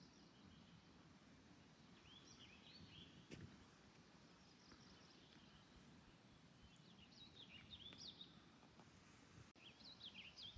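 Faint songbird singing in short warbling phrases, several times, over a low steady outdoor background hiss, with one sharp click about three seconds in.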